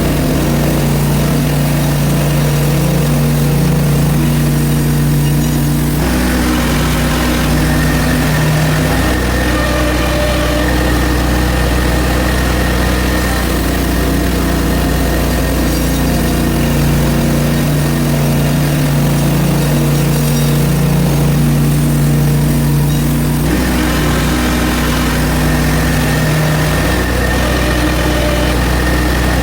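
Hudson HFE30 portable bandsaw mill running steadily under its gas engine. A brighter, higher whine joins about six seconds in and drops away a few seconds before the end, as the band blade runs through the log.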